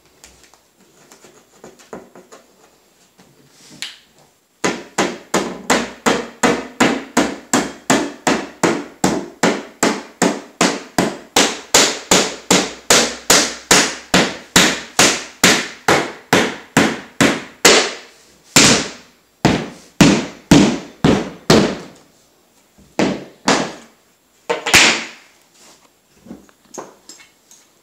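Rubber mallet tapping engineered hardwood replacement boards down into place: a long, even run of quick strikes, about four a second, then a handful of slower, louder blows.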